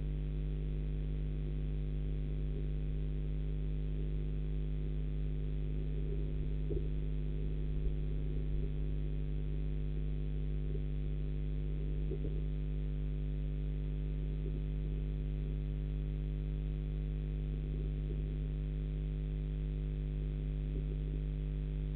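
Steady electrical mains hum in the nest-box webcam's audio: a low buzz made of several steady tones. A few faint, brief scuffs come through about 7 and 12 seconds in.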